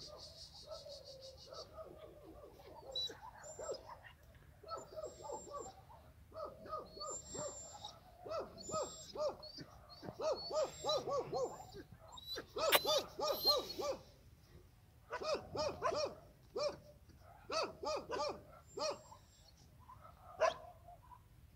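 Animal calls in quick runs of short, repeated pitched notes, loudest around the middle, with higher chirps above them.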